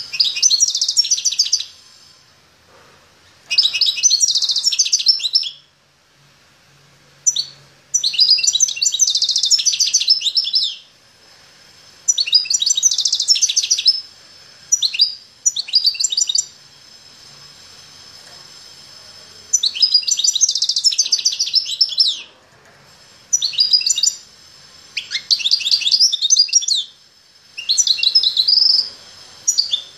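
Caged songbird singing: about nine phrases of rapid, high trilled notes, each one to three seconds long, repeated after short pauses.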